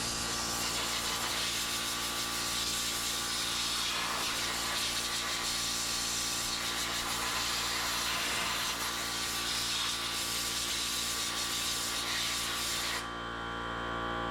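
A steady mechanical hum, like an engine or machine running, under a loud hiss that cuts off sharply near the end.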